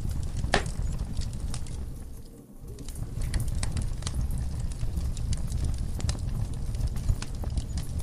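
Burning logs in a wood fire: a low steady rumble of flame with irregular sharp crackles and pops, one louder pop about half a second in. The rumble drops away briefly about two and a half seconds in, then returns.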